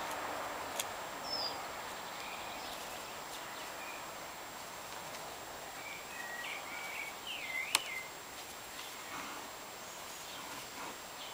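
Outdoor ambience: a steady rustling hiss with short, high chirps and squeaks scattered through, most of them between about six and eight seconds in. Two sharp clicks, about a second in and near eight seconds.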